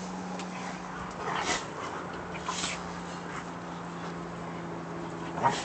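Dogs play-fighting in blankets: short dog vocal sounds and rustling come in brief bursts about a second and a half in, around two and a half seconds, and near the end, over a steady low hum.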